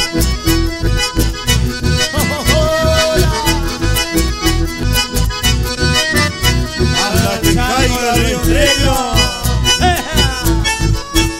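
Live band playing dance music: a lead melody over a steady bass and percussion beat.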